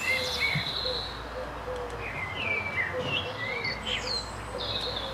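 Garden birds chirping: many short, quick chirps and little rising and falling whistles, several birds calling over one another, over a faint low rumble.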